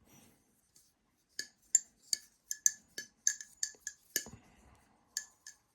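LBY balisong being flipped by hand: a string of sharp metallic clicks and clinks, about three a second and irregular, as the handles swing round and knock against the blade and each other.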